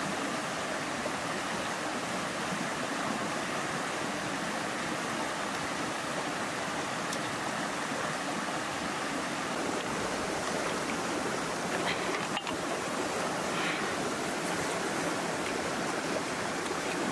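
Shallow river rapids rushing over rocks, a steady hiss of running water, with a few faint clicks in the second half.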